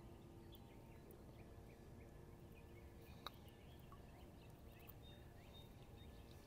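Near silence: faint outdoor lake ambience with distant birds chirping now and then, and a single sharp click about three seconds in.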